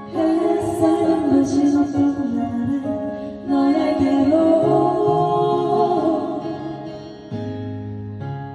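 Background music with singing: a song with a melodic vocal line over sustained accompaniment.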